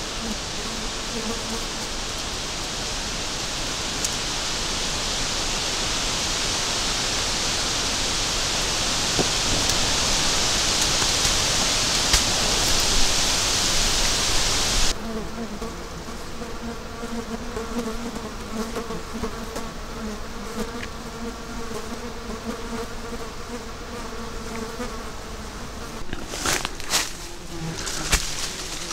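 Wind hissing through birch leaves and building for about fifteen seconds, then an abrupt change to calmer sound in which a fly buzzes steadily close by. A few crackles of brushed twigs and leaves come near the end.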